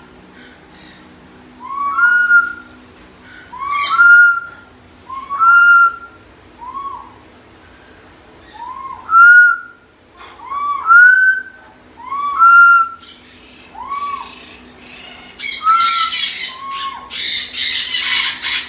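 Pet parrots screaming: a loud two-note call, a lower arched note then a higher one, repeated about every one and a half seconds. Near the end a harsher, noisier screeching joins in.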